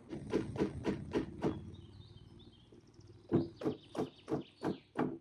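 Rubber mallet tapping the wooden rocking chair's glued joints home: a run of five knocks, a pause of about two seconds, then another quick run at about three knocks a second. The joints are a tight glued fit, seated by mallet instead of clamps.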